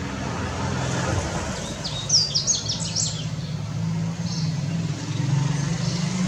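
Yellow-bellied seedeater singing one quick phrase of high, slurred notes about two seconds in, with a few faint notes later, over a steady low rumble of traffic.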